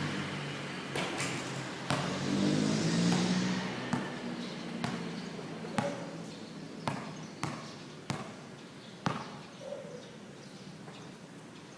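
Basketball bouncing on a hard court, a string of sharp, irregularly spaced bounces, with a low hum that swells and fades in the first few seconds.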